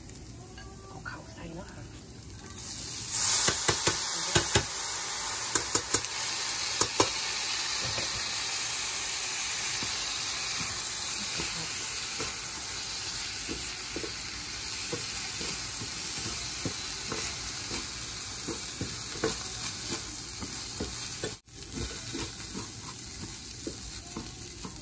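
Washed, drained raw rice stir-fried in hot oil with ginger and garlic in a stainless steel pan. The sizzle jumps up sharply about three seconds in as the rice goes in, then holds steady, with scattered scrapes and taps of a wooden spatula on the pan.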